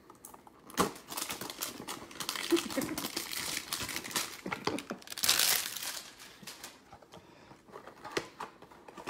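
Shiny plastic wrapper of a Panini Playbook football-card hanger pack crinkling as it is opened and handled, loudest about five seconds in.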